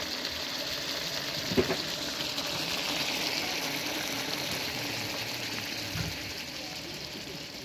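Steady sizzling hiss of a large pot of liver stew cooking on the heat, a little louder midway. A short knock about a second and a half in.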